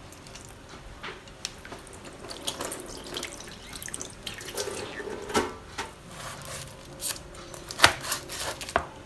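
Tap water running into a stainless steel kitchen sink, with scattered clicks and knocks. Near the end come a few sharp knocks of a knife on a plastic cutting board.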